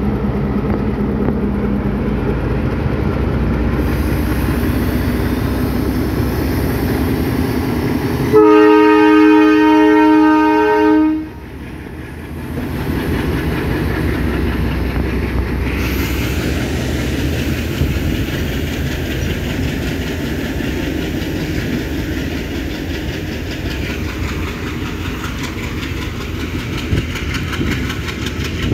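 Sri Lanka Railways M8 class diesel locomotive passing close with its engine running, giving one long horn blast about eight seconds in that lasts nearly three seconds. After that the coaches roll past with the clatter of wheels on the rails.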